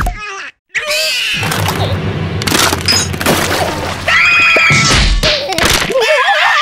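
Cartoon soundtrack with background music: ice cracking and shattering, then two cartoon characters screaming in high voices about four seconds in.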